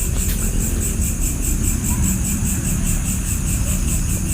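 Insects chirping in a steady rapid pulse, about five pulses a second, over a low rumble.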